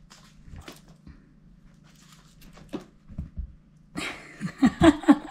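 Cats pouncing at a wand toy on a rug: scattered soft taps and scuffs, then a loud flurry of thumps and scrabbling about four seconds in.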